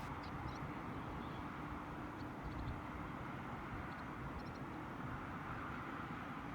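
Steady outdoor ambience: a constant even hiss with a low rumble underneath, and a few faint short high chirps scattered through it.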